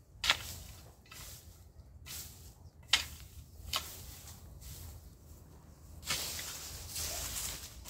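Long-handled rake scraping through dry cut grass and straw: three sharp scratchy strokes in the first four seconds, then a longer rustling drag about six seconds in.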